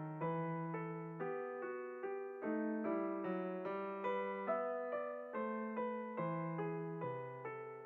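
Background music: a gentle electric piano melody of evenly paced notes with sustained chords.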